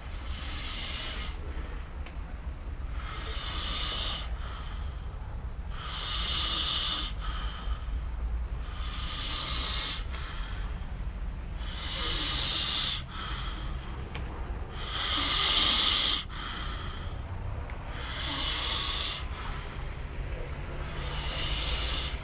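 A man snoring loudly, a rough snore like a pig's, one breath about every three seconds; eight snores, the loudest a little past the middle.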